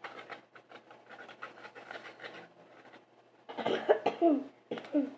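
A spoon scraping and clicking in a bowl as salt is stirred into shampoo to make slime. About three and a half seconds in comes a short, loud vocal sound that falls in pitch.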